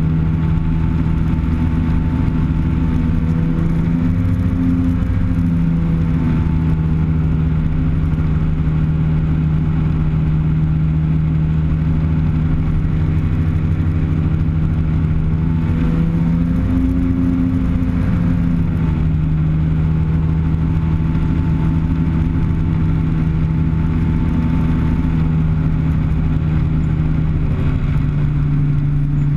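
Typhoon TL-32 ultralight aircraft's engine and propeller droning steadily in flight, heard from inside the cockpit. The pitch rises briefly about four seconds in and again about sixteen seconds in, and drops a little near the end.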